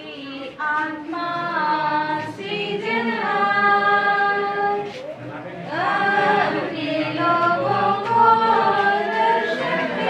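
A small group singing a hymn together without instruments, led by women's voices, in long held notes.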